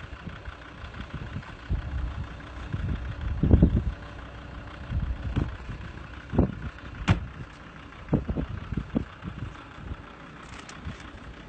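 A vehicle engine idling steadily, with irregular low bumps and a sharp click about seven seconds in.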